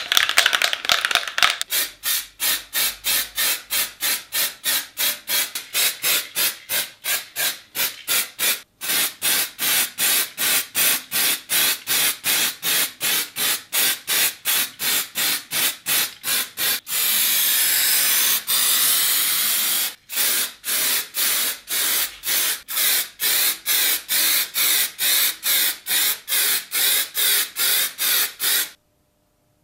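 Aerosol spray can of primer hissing in rapid short bursts, about three a second, with one longer unbroken spray about two-thirds of the way through; the spraying stops abruptly near the end.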